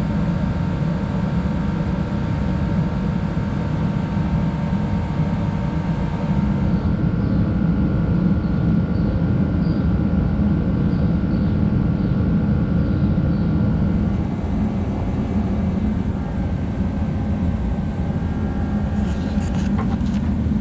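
A steady low mechanical rumble with a faint steady hum above it, a little louder from about seven seconds in until about fourteen seconds.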